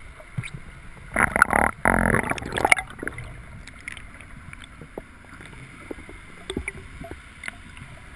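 Water heard through a submerged GoPro's housing: a steady muffled wash with scattered small clicks and knocks, and one loud burst of water noise about a second in that lasts roughly a second and a half.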